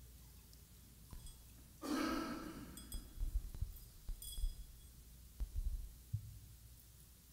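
Quiet church room tone with a few faint, brief clinks of metal and glass communion vessels being handled on the altar, and soft low knocks. About two seconds in, a short breathy burst from a person, like a cough or heavy breath.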